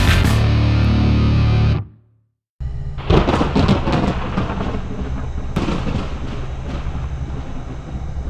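Loud, hard-driving intro music that fades out about two seconds in, then a brief silence. After that, thunderstorm sound effects: a steady rumble of rain and wind, with two sharp thunder cracks.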